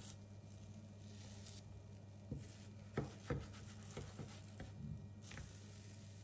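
A wooden spatula knocks and scrapes against a nonstick frying pan as a pancake is worked loose and flipped. It makes a scattered run of light taps over a few seconds in the middle, over a steady low hum.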